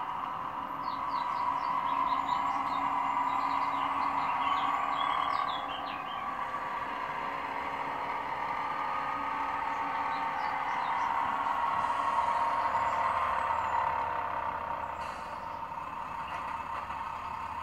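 Sound decoder of an H0 Roco VT 798 railbus model playing a diesel railbus engine running, through the model's small onboard speaker. The running sound swells twice and eases off near the end, with short bird-like chirps in the first few seconds.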